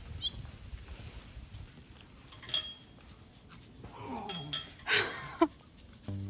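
Young feral hog caught in a cast net squealing and grunting in a few short outbursts, the loudest about five seconds in. Music starts just before the end.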